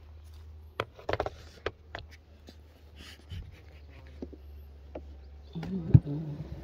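Sharp clicks and knocks of a beehive being opened and worked with a hive tool, over a steady low hum. A short, low animal call, the loudest sound, comes about five and a half seconds in.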